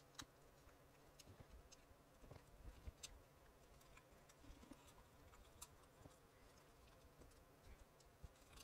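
Near silence broken by faint scattered clicks and light handling noise as a replacement ear pad is stretched and pressed into the groove of a headset's plastic ear cup.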